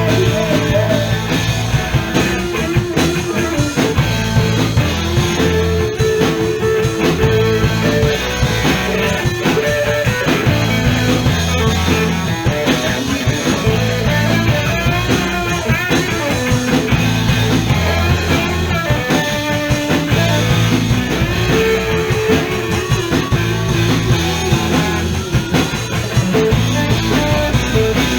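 A rock trio playing a song, with guitar and drums.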